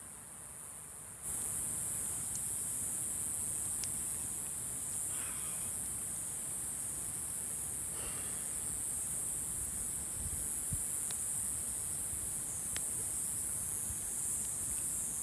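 Insect chorus: a steady, high-pitched chirring that starts abruptly about a second in, with a few faint clicks.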